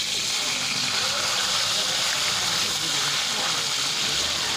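Whole sea fish frying in hot oil in a metal pan: a steady, hissing sizzle.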